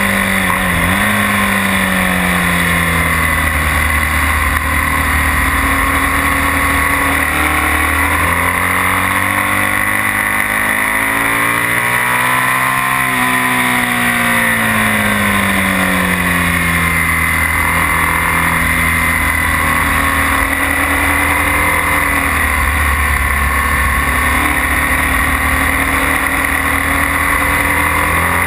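BMW R1200S boxer-twin engine heard onboard at track speed, its pitch falling early, climbing for several seconds to a peak midway, then falling again as the rider accelerates and slows through the corners, over a steady rush of wind noise.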